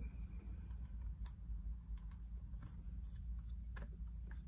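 Faint, scattered light clicks and small scrapes as a two-stroke motorized-bicycle engine's cylinder is wiggled by hand over the piston on the crankcase. A low, steady background hum runs underneath.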